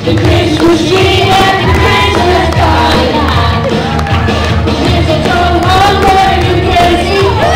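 Pop music with singing over a steady bass beat.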